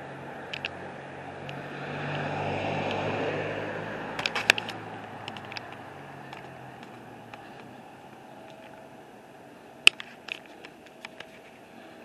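A vehicle passing on the street: a low engine and tyre noise that swells over a second or two and fades away by about halfway through. Sharp clicks and taps come throughout, the loudest a little before the end.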